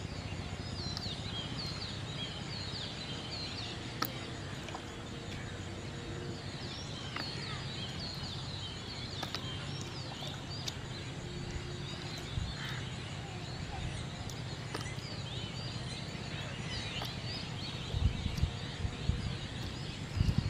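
Outdoor birds chirping and calling continually, many short quick notes that rise and fall, over a steady low rumble; a few low thumps near the end.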